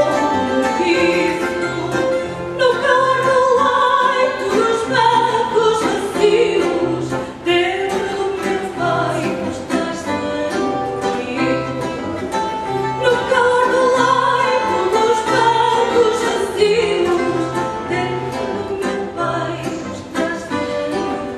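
A woman singing fado with wavering held notes, accompanied by a Portuguese guitar and a classical guitar plucking a steady, repeating bass rhythm.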